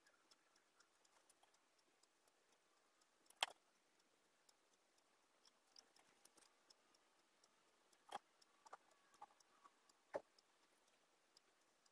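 Near silence with a few faint clicks and light knocks of small wooden box parts being handled. The sharpest click comes about three and a half seconds in, and a short cluster follows near the end.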